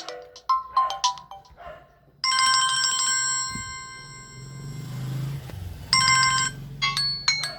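Samsung Galaxy A03s ringtones (One UI Core 5.0) playing. A quick melodic ringtone ends, then a bell-like chime rings out and fades, and strikes again about four seconds later. Near the end a different quick melodic ringtone begins.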